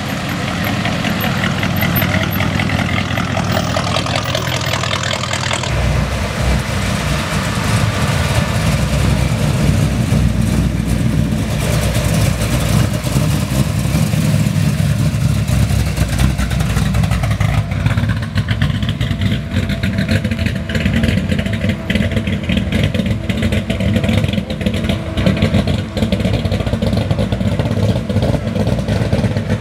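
Classic American car's engine running at low speed with a deep, pulsing exhaust note as the car passes close by and pulls away; it gets louder about six seconds in.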